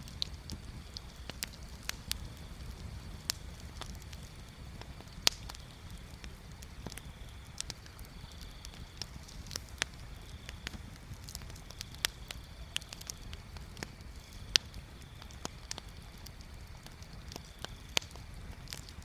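Wood bonfire crackling, with irregular sharp pops, a few of them much louder, over a low steady rumble.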